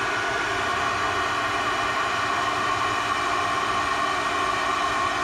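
Handheld flameless induction heater running, a steady whine over a hiss, as it heats a body-mount bolt to break its Loctite threadlocker free.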